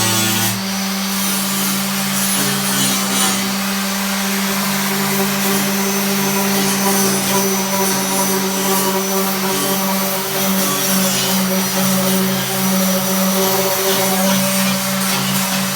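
Handheld electric power tool running continuously on the car's rusty body panel metal: a steady motor hum under a dense hiss. The hum changes slightly about half a second in.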